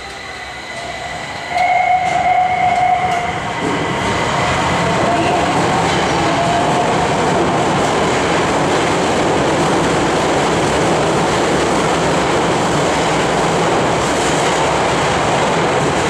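Nagoya subway N1000-series train pulling out of the station. A held tone sounds for about two seconds, then the motor whine rises as the train picks up speed. From then on it is a steady loud rumble of wheels and running gear as the cars pass and run into the tunnel.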